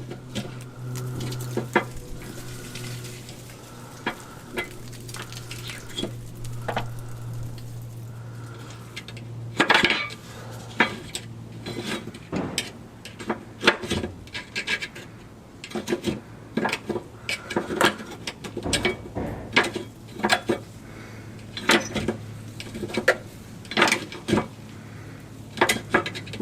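Metal parts and hand tools clinking and clanking irregularly, working loose hardware inside a car's bumper, with the knocks coming faster and louder from about ten seconds in.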